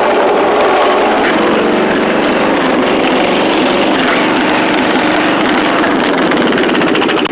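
Riding lawn mower's small engine running steadily and loud through a custom exhaust.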